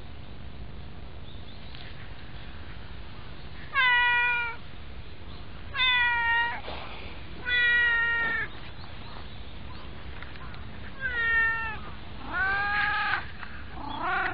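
A cat meowing about six times, each meow under a second long, with a pause of a few seconds between the third and fourth.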